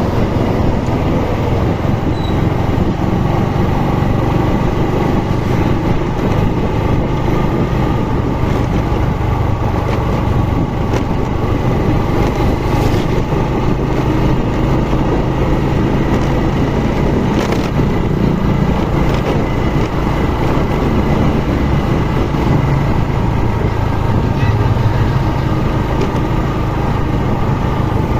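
Motorcycle engine running steadily while riding, with constant road noise and a low engine hum that holds even throughout.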